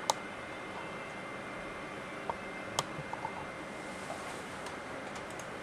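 Computer mouse clicking a few times, two sharp clicks standing out (just after the start and near three seconds in), over a steady hiss of computer fan and room noise.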